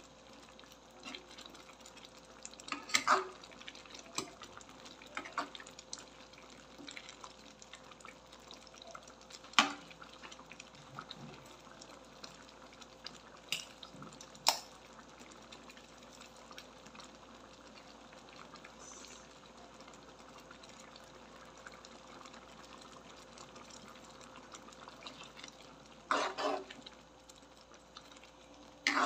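Metal ladle stirring a soupy vegetable stew in a metal wok: wet sloshing with a few sharp clinks of the ladle against the pan, and a longer scraping stir near the end.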